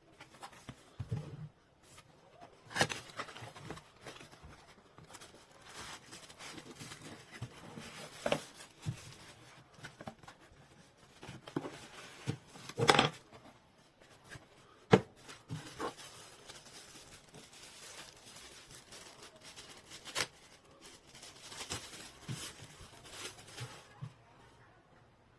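Handling noise: rustling with scattered sharp clicks and knocks, as of a small cooler case and its packaging being unpacked and handled.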